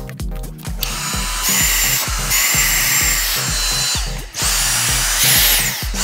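Dyson V6 Motorhead+ cordless stick vacuum's motor switched on and off with its trigger several times: each run starts with a high whine rising as the motor spins up and ends with it falling away, with a short break about four seconds in. Background music with a steady beat plays underneath.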